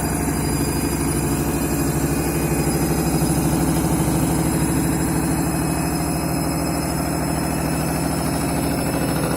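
Washing machine on its 1200 rpm final spin: the drum spins at high speed with a steady hum and a fast, even pulsing throb as the machine shakes hard.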